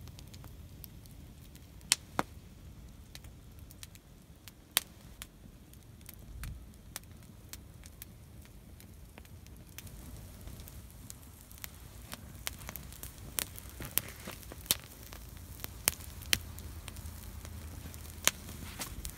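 Wood campfire crackling, with sharp irregular pops that come more often in the second half.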